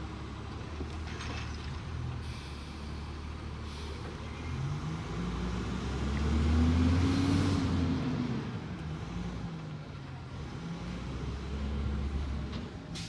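Recycling garbage truck's engine pulling away, its pitch rising to its loudest about six to seven seconds in, then dropping off, and climbing again near the end. A hiss of air, likely the air brakes releasing, comes about two seconds in.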